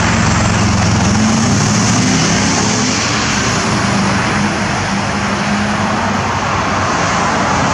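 Steady road-traffic noise with a low engine hum from a motor vehicle, strongest over the first few seconds and fading out near the end.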